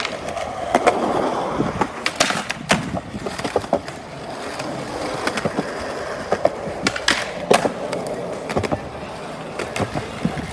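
Skateboard wheels rolling on concrete, broken by repeated sharp pops and clacks of the board's tail and deck striking the ground during flatground tricks.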